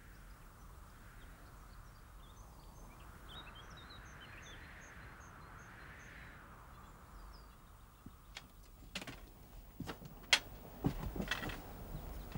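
A bird calling faintly in a run of thin, high, evenly spaced notes, about three a second, with a few small chirps, over a soft hiss of open air. From about eight seconds in come sharp knocks and scrapes of hikers' footsteps on rock and gravel.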